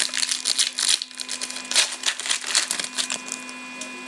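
Plastic wrapper of a trading-card pack crinkling as it is torn open and handled, in a quick run of short rustles that stop about three seconds in. A steady electrical hum runs underneath.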